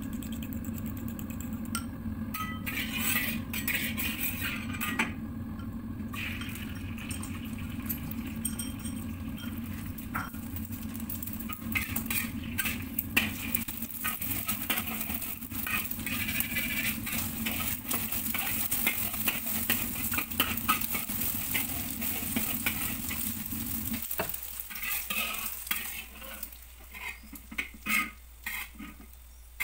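Eggs beaten in a ceramic bowl at first, then frying in hot oil in a wok: sizzling, with a metal spatula stirring and scraping the egg against the pan. A low steady hum under it cuts off about three-quarters of the way through, leaving only sharp scrapes and clinks.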